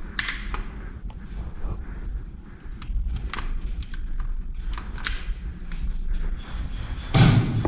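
Airsoft guns firing scattered single shots, sharp snapping cracks spaced irregularly, with a louder, heavier knock about seven seconds in.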